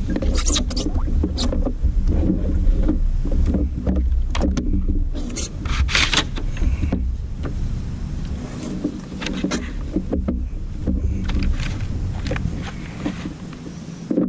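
Irregular knocks and clatter of gear being handled on a plastic fishing kayak as a long fish-measuring board is pulled out and laid across the angler's lap, over a steady low rumble. The clatter is densest about half a second in, around the middle, and again a few seconds later.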